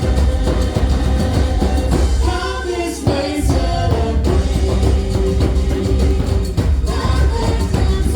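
Loud Latin-pop stage show music with a heavy low beat, with a brief vocal phrase about two to three seconds in.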